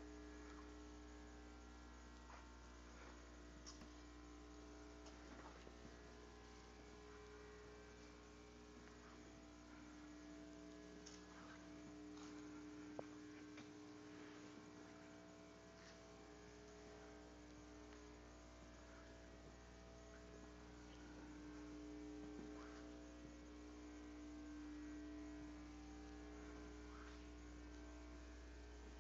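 Near silence: a steady low electrical hum, with faint scattered ticks.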